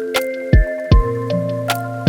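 Lo-fi instrumental background music: held keyboard-like notes shifting from chord to chord over a slow beat of soft kick-drum thumps and crisp clicks.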